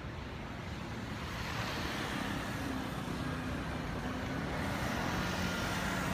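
Street traffic running steadily, with a motor scooter's engine passing and growing louder toward the end.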